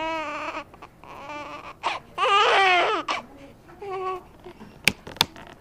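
Newborn baby crying in short, wavering wails, the loudest and longest about two seconds in. Near the end come two sharp clicks in quick succession.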